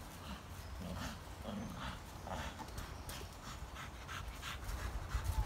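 A pocket American Bully dog moving through dry fallen leaves: its paws rustle and scuff in quick irregular ticks, with panting and a few short low grunts about a second in and again shortly after.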